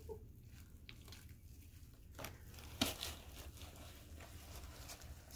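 Faint sticky crackles and soft squelches of glue-and-sand slime being stretched and pulled apart by hand, with one sharper click a little under three seconds in.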